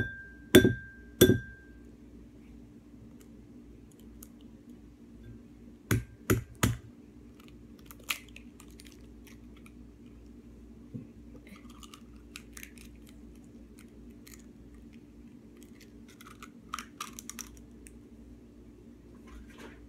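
An egg knocked against the rim of a ceramic dish: three sharp taps in the first second and a half, the dish ringing briefly after them, then three more taps about six seconds in. Small scattered clicks follow as the shell is pried apart over the dish.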